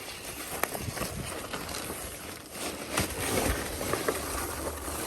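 Polystyrene packing peanuts rustling and shuffling as hands dig a taillight out of its shipping box, with scattered sharp clicks and knocks.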